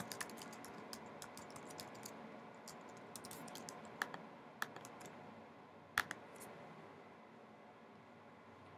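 Faint computer-keyboard typing: a quick run of key clicks for the first few seconds, then a few louder, separate clicks around four and six seconds in.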